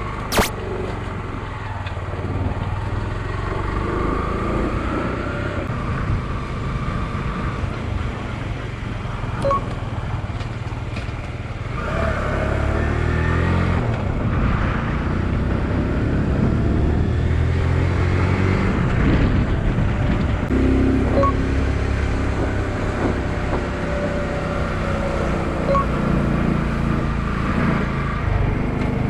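Motorcycle engine running on the move, its revs rising and falling with gear changes, over steady road and wind noise. A single sharp click sounds about half a second in.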